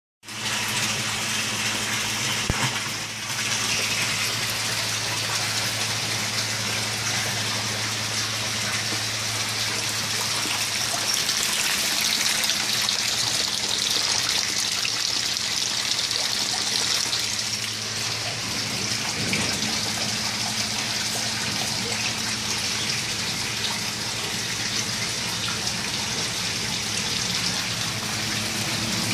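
A stream of water pouring steadily from a PVC pipe into an aquaponics fish tank, splashing onto the water surface, with a low steady hum underneath.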